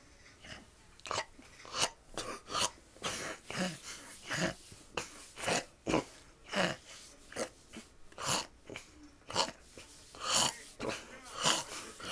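Snoring: a steady run of short, noisy breaths, about two a second.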